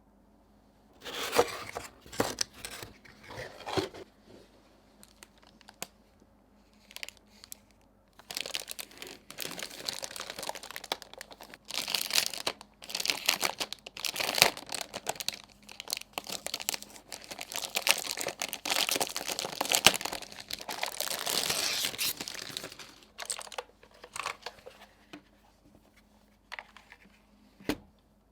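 Keyboard packaging being opened by hand: crinkling and tearing of wrapping, in short bursts at first, then a long stretch of continuous rustling from about eight seconds in until about twenty-three seconds, followed by a few scattered handling clicks.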